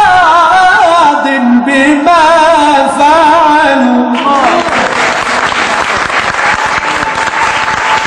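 A male singer holds a long, wavering melismatic line of Arabic vocal chanting; about four seconds in, the phrase ends and an audience breaks into applause.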